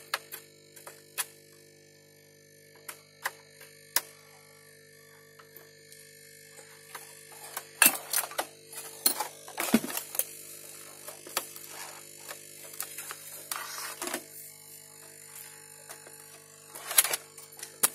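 Sharp plastic clicks, knocks and scraping as the snap-fit back cover of an AOC 20-inch LCD monitor is worked loose and lifted off. The busiest, loudest handling noise comes about eight to ten seconds in and again near the end.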